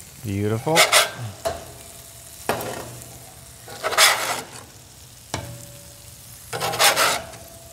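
Brisket burger patties sizzling on a hot cast iron griddle as they are flipped one by one with a metal spatula. Each turn brings a short, loud burst of sizzle and spatula scrape, several times over, above a steady sizzle.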